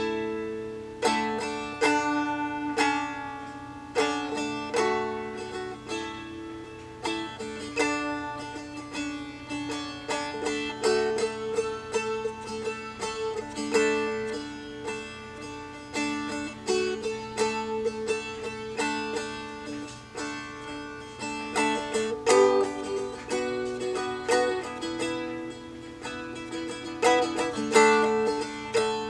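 Seagull Merlin, a four-string dulcimer-style fretted instrument tuned to D, being strummed in a steady rhythm. Its open D strings ring as a drone under the changing chords.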